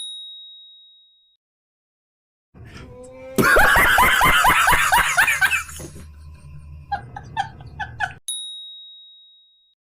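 A bell ding that rings out for about a second, then a loud burst of rapid laughter over a low hum, followed by a few short bursts and a second ding near the end: roast-video sound effects.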